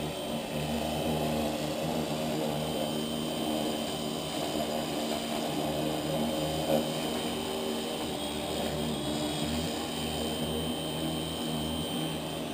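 Pressure washer running steadily while its wand sprays down a muddy truck axle and frame, with a thin high whine over the motor's hum.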